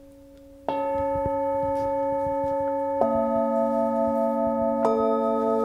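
Singing bowls struck with a mallet three times: about a second in, at about three seconds and near the end. Each strike adds new clear ringing tones that sustain and overlap with the ones still sounding, over a faint ring left from an earlier strike.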